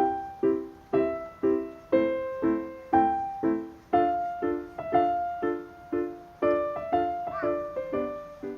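Background music: a piano-like keyboard playing a steady pattern of chords about twice a second under a simple melody, ending near the end.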